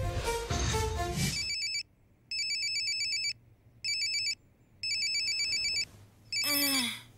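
A short burst of music, then a mobile phone ringing with a high electronic trilling ringtone in bursts of about a second with short gaps between them. Near the end comes a short falling groan.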